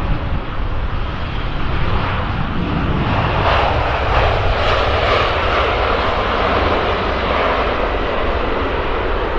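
A large airplane's engines roaring as it passes, the sound swelling to its loudest about three to five seconds in and then easing off slightly, over a low rumble of wind on the microphone.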